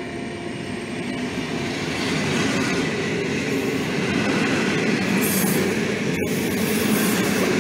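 PKP Intercity passenger coaches rolling past close by as the train pulls out of the station: a steady rumble of wheels on rails that grows louder about two seconds in.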